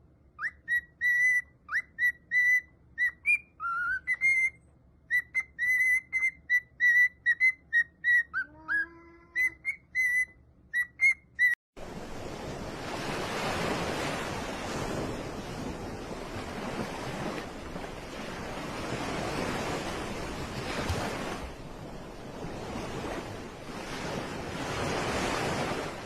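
A rapid series of short whistle toots at one high pitch, a few sliding upward, with a brief lower wavering sound about eight and a half seconds in. About twelve seconds in, the toots give way abruptly to a steady rushing noise.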